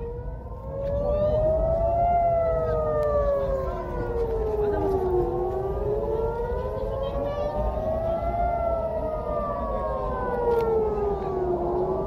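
Civil-defense warning siren wailing, its pitch rising and falling slowly, each cycle about six seconds long: the rising-and-falling alert that warns of incoming rockets. A low rumbling noise runs beneath it.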